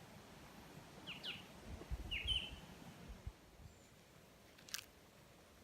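A few faint bird chirps: one short sliding call about a second in and a quick pair about two seconds in, over a low rumble. A single sharp click comes near the end.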